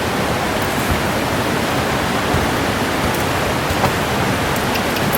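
Steady rush of flowing river water, an even unbroken roar, with a few faint ticks over it.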